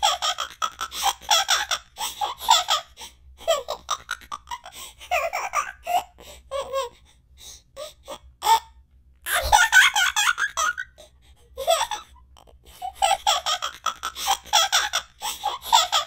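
A cartoon character's laugh: a voice laughing in repeated bouts of rapid pulses, with short pauses between bouts and a longer lull around the middle.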